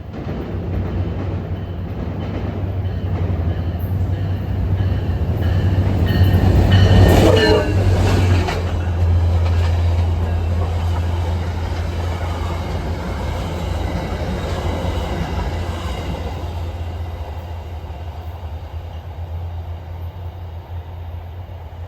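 Passenger train passing close by: a steady diesel locomotive drone with rail and wheel noise, loudest about seven seconds in and then slowly fading.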